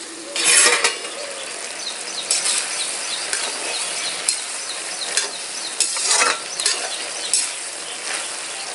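Flat metal spatula stirring and scraping simmering potato and bean curry in an aluminium kadhai, with a steady sizzle and repeated sharp clinks of metal on the pan. A louder clatter about half a second in as the lid comes off.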